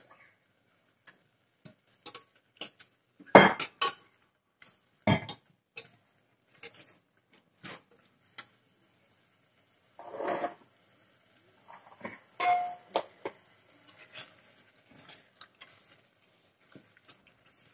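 Steel spoon stirring and scraping a thick masala in an aluminium pressure cooker, with irregular clinks and knocks of metal on the pot; two sharper knocks come a few seconds in, and there is a ringing clink later on.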